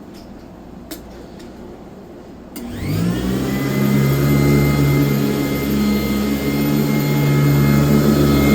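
A few faint clicks over quiet room tone, then a 1996 Sanitaire S663 vacuum cleaner switches on with a click a little under three seconds in; its motor spins up with a quick rising whine and settles into a loud, steady run.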